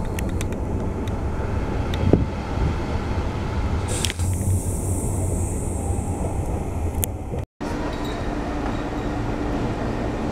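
Steady rumble of a moving train heard on board as it runs along the line. About seven and a half seconds in, the sound cuts to the trackside rumble of an approaching locomotive-hauled passenger train, with a faint steady hum.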